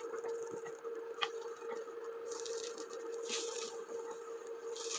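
Wooden spatula scraping and pushing a folded egg omelette around a nonstick frying pan, a few soft scrapes, over a steady hum from the electric cooktop beneath it.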